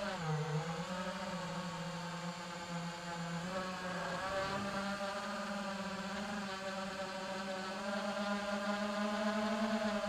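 iFlight Titan DC5 5-inch FPV quadcopter's brushless motors and propellers whining as it flies, heard through the drone's own onboard recorder. The pitch dips briefly about half a second in, then holds fairly steady with small rises and falls.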